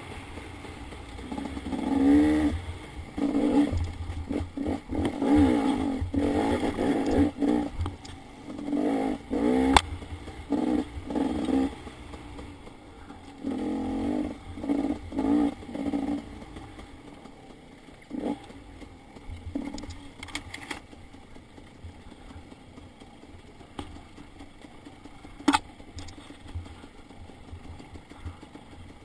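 Dirt bike engine revving in short bursts, on and off the throttle, over a rough trail for the first half. It then runs quieter at low revs, with a few sharp knocks scattered through, one louder than the rest near the end.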